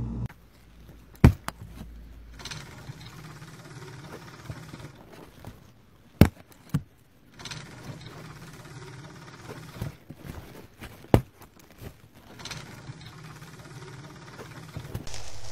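A few sharp knocks or clicks, spaced several seconds apart, over a faint rustling background.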